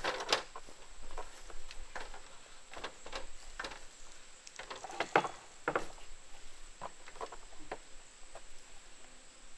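A man's boots knocking and tapping on ladder rungs as he climbs up and steps onto a pallet set on tractor forks. The knocks come irregularly, the loudest about five seconds in.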